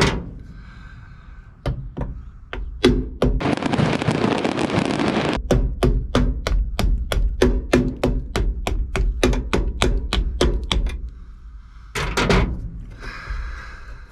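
Hammer blows on a battery cable terminal clamp, reshaping it round: a few single knocks, then a fast run of about four blows a second for several seconds. A harsh two-second scraping noise comes a few seconds in.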